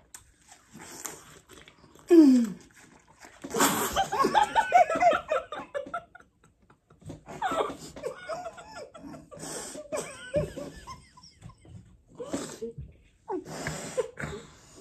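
Two women laughing hard in repeated bursts, the loudest fit about four seconds in.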